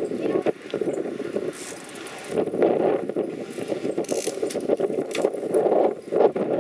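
Bicycles rolling along a concrete sidewalk: a steady rough rumble of tyres and rattling of the bikes, with a few sharp clicks and jangles.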